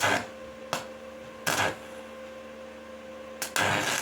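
Stick (MMA) welding arc on a steel pipe: the arc is struck in three short crackling bursts, then held as a continuous crackle from about three and a half seconds in. A steady hum runs underneath.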